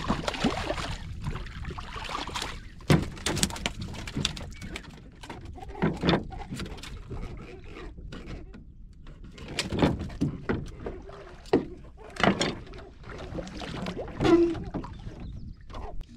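Irregular knocks and thuds on a small wooden boat as a hooked fish is landed and handled, with water moving against the hull underneath.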